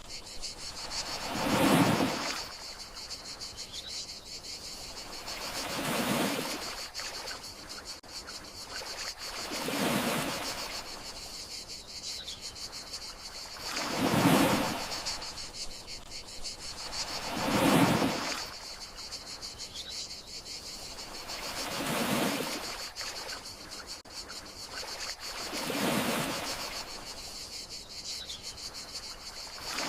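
Gentle sea waves washing in and out on a shore, one swell about every four seconds, over a steady high chirring of crickets.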